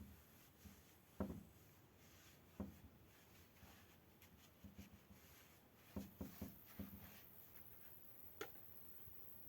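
Near silence with a few scattered soft knocks and taps: two single knocks early, a quick cluster of them about six seconds in, and a sharper click near the end.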